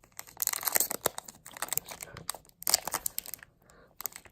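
Foil Pokémon booster pack wrapper crinkling in the hands, in irregular crackly bursts, strongest about half a second in and again near three seconds.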